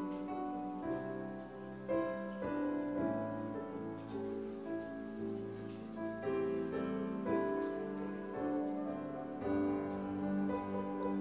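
Slow instrumental keyboard music with piano sound, held chords changing every second or two.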